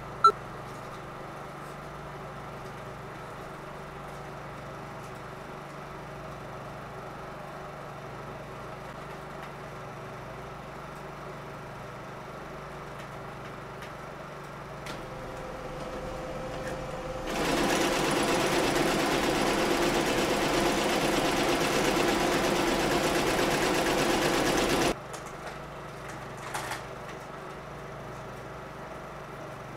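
A 16mm film projector runs with a steady mechanical clatter, with a sharp click at the very start. From about halfway in, a loud rushing noise builds up, holds for about seven seconds, then cuts off suddenly.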